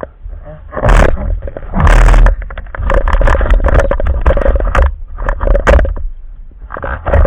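A spearfisher's heavy, rasping breaths through a snorkel, several in a row, over a steady low rumble of water against the camera.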